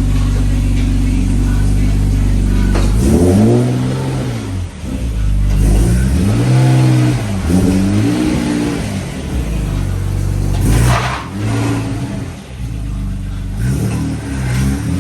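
Infiniti G37's 3.7-litre V6 through its modified exhaust, running steadily and then, about three seconds in, revved in a series of short rises and falls.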